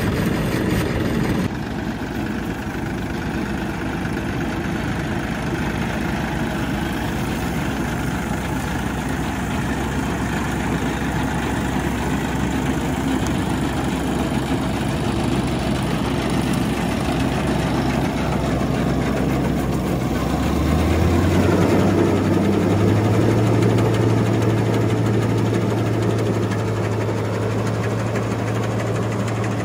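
John Deere tractor's diesel engine running steadily, then revved up in two steps about two-thirds of the way through and held at the higher speed.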